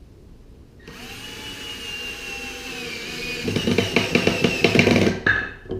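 Power drill driving a screw into a wooden plank: the motor whines with its pitch sagging slightly under load, then turns to a rapid, loud clicking for its last second and a half before stopping.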